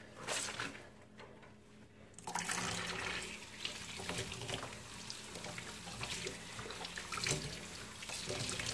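A wet white cotton T-shirt being hand-washed in a soapy stainless steel sink, with water sloshing and splashing as the fabric is worked. It starts about two seconds in, after a quiet moment, and then runs steadily.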